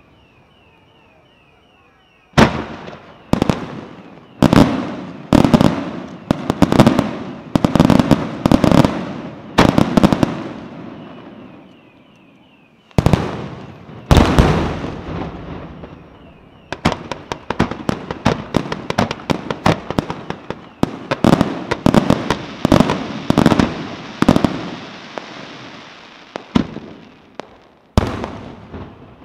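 Aerial firework shells bursting in a display. After about two quiet seconds comes a run of loud booms, roughly one a second, each trailing off. A short lull follows, then more booms and a long stretch of dense, rapid crackling reports, with a few last booms near the end.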